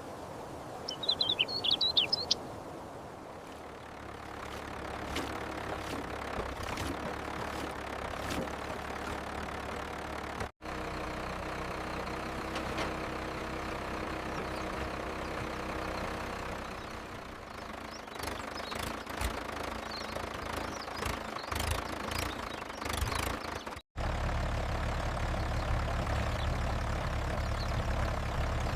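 A few bird chirps near the start, then a heavy engine running in several abruptly cut segments. Sharp metallic knocks and clanks come in a cluster about two-thirds of the way through, and a deeper, louder engine rumble follows the last cut.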